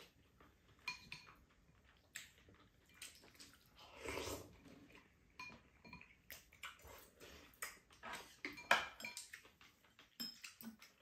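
Faint, scattered clinks and scrapes of spoons and chopsticks against ceramic bowls and a pan as two people eat, with a louder, longer scrape about four seconds in.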